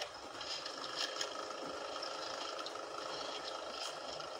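Steady wind and sea noise around a small open boat, with a few faint clicks and knocks about a second in and near the end.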